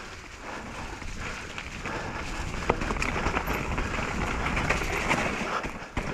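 Mountain bike rolling down a wet, root-strewn dirt trail, with steady tyre noise and rattling from the bike. The noise gets louder after a couple of seconds, and there are two sharp knocks about halfway through.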